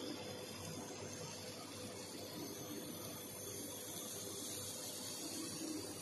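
Machine running: a steady hiss with a faint, steady hum.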